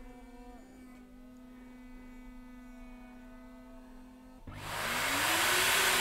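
Clearaudio Double Matrix Professional record cleaning machine humming quietly and steadily while it applies cleaning fluid. About four and a half seconds in, its vacuum suction starts with a loud rushing hiss, and a motor tone rises in pitch as it draws the fluid off the record.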